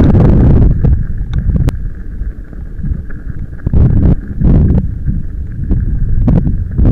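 Wind buffeting the camera microphone over the rumble and rattle of a bicycle's knobbly tyres rolling on loose gravel and stones; it eases about two seconds in, then swells again in gusts.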